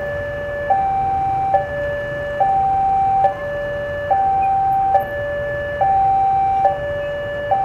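Railway level-crossing warning alarm sounding a steady two-tone hi-lo signal, each tone held just under a second, warning that a train is approaching.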